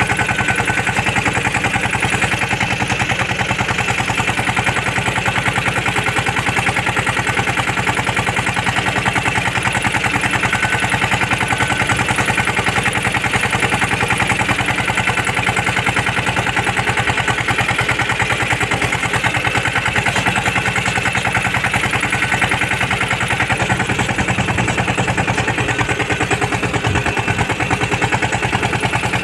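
Mini tractor's diesel engine running steadily with a rapid, even clatter, heard close up from the driver's seat as it moves between crop rows.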